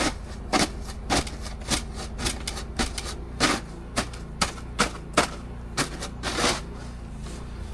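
Snow shovel chopping and scraping into packed snow: about fifteen sharp, irregular strokes, one every half second or so, over a steady low hum.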